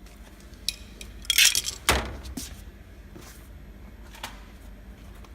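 Clicks and knocks of hand tools and small parts being handled at a vending machine's keypad panel while its fasteners are taken off. A short scrape comes about a second and a half in, followed by one sharper knock, then a few lighter clicks.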